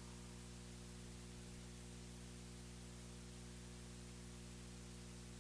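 Near silence: a faint, steady low hum with hiss.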